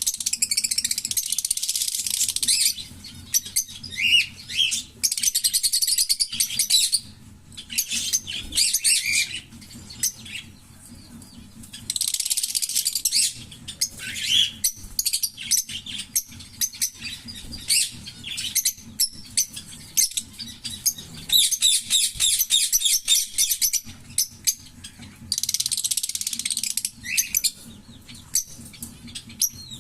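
A pair of green Fischer's lovebirds calling: five long strings of rapid, high chattering giggles, each lasting about two to three seconds, separated by short sharp chirps.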